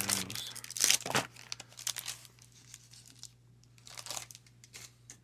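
Crinkling and rustling of trading-card pack wrappers and cards being handled, in short bursts, the loudest about a second in.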